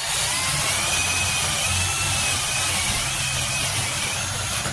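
Ryobi 18V ONE+ HP brushless compact hammer drill (RPD18C) running steadily under load, boring a hole through a wooden board with a spade bit: a motor whine over the noise of the bit cutting wood, stopping right at the end.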